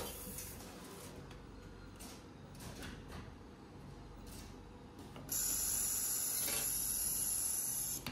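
Pneumatic steel-rule auto bending machine working, with a few faint clicks of its mechanism. About five seconds in, a loud steady air hiss starts, holds for nearly three seconds, then cuts off suddenly.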